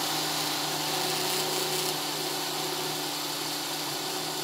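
Electric drill clamped in a vise running steadily, spinning a metal bolt piece in its chuck while a flat file rasps against it as on a lathe.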